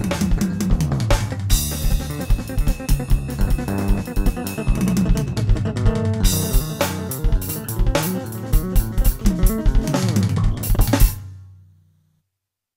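Electric bass and an electronic drum kit playing a fast groove together, with busy kick, snare and rimshot hits under a moving bass line. About 11 seconds in they stop on a final accent; the bass note rings out briefly and fades to silence.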